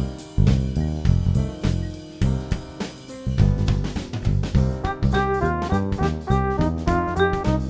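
Background music: an upbeat jazzy instrumental with a steady drum beat and keyboard and brass-like melody notes.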